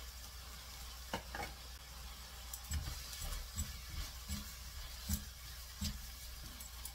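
Red silicone spatula stirring and scraping chili paste and seasonings in a stainless steel pan of soybean sprouts, with a few short knocks against the pan from about a second in. Under it is a faint, steady sizzle of the oil in the pan.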